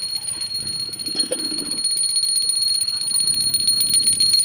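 Small metal hand bell rung rapidly and without pause, a steady high ringing made of many quick clapper strikes.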